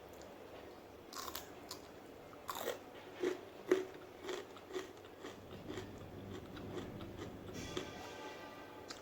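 A person biting into and chewing crunchy food close to the microphone: a few crisp bites, then steady crunchy chewing at about two chews a second. Near the end there is a brief pitched squeak.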